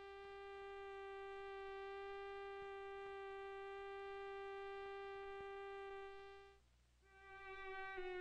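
A synthesizer playing a single steady sawtooth-wave tone, rich in overtones, held for about six seconds and then stopping. About a second later a bowed string instrument starts a note at about the same pitch.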